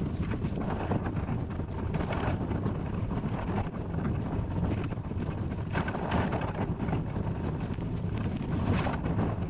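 Wind buffeting the microphone, a steady low rumble, with a soft rustle or scrape every couple of seconds as the kayak is hauled along on its wheeled trailer.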